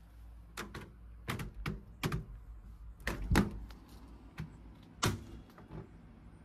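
A string of irregular sharp knocks and clicks, about fifteen in all, spaced unevenly, with the loudest a little past the middle.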